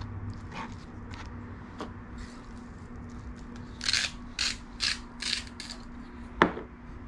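Hand-twisted salt grinder cracking salt crystals in about five quick grinding strokes, then a single sharp click near the end.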